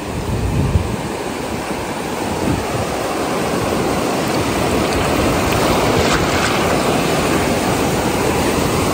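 Ocean surf breaking and washing in the shallows, a steady rush that grows gradually louder, with wind buffeting the microphone near the start.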